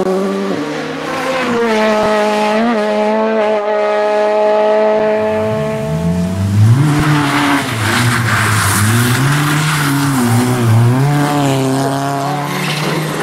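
Rally car engines at high revs. For the first few seconds one engine holds a steady high note, then another engine's revs swing up and down repeatedly as the car is driven hard through a corner, with a rush of tyre and road noise over it.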